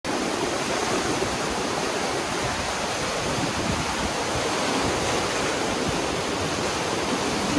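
A stream in flood: a steady rush of fast, turbulent water running high in its channel.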